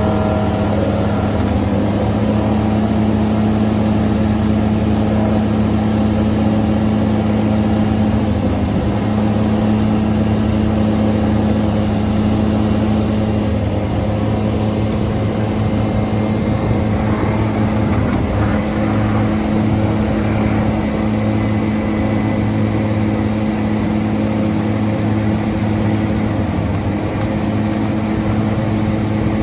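Hitachi Zaxis 490 LCH excavator working a sheet pile driver: a loud, steady machine drone with a constant low hum and no break.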